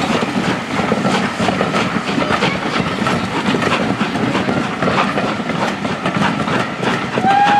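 A train of BR Mark 1 passenger coaches rolling past, wheels clattering steadily over the rail joints. Near the end a train whistle starts, one held note.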